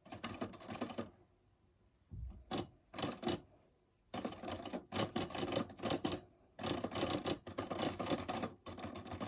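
1967 Smith Corona Corsair manual portable typewriter being typed on: keys clacking in quick runs that stop and start several times, with longer runs from about four seconds in.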